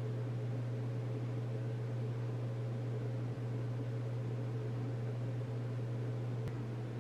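A steady low hum with a faint hiss over it, unchanging throughout, and one faint click near the end.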